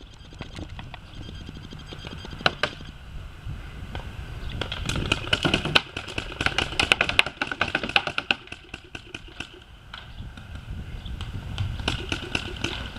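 Paintball markers firing: sharp pops in rapid strings, with a couple of single shots early on and the heaviest firing in the middle.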